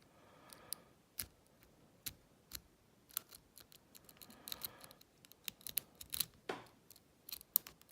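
Lock pick rake scraping in and out of an old American Lockwood pin-tumbler cylinder under a tension wrench, with many irregular sharp clicks of the pins and metal tools. Two short stretches of scraping, near the start and around four to five seconds in, are the rake strokes.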